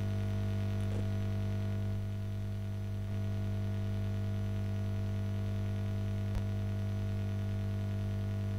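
Steady electrical hum from the recording setup: a low, unchanging mains-type hum with a buzz of overtones above it. A single faint click about six seconds in.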